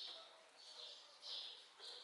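Faint, repeated high-pitched chirping calls from a small animal, about two or three a second, over a soft outdoor background hiss.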